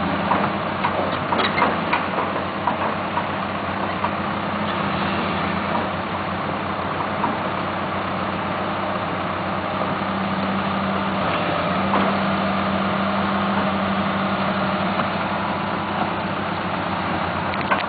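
Hydraulic crawler excavator's diesel engine running steadily at idle, with a few light clicks about a second in.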